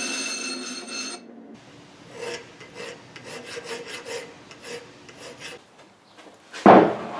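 A bench grinder whining as it grinds a steel bar, cut off about a second in; then a file rasping across the edge of the square steel bar in short strokes, about three a second. Near the end, a heavy thump as a block of wood is set down on the workbench.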